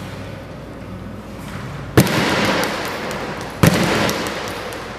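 A fairly quiet stretch, then two sharp bangs about a second and a half apart, each followed by a crackling hiss that slowly fades.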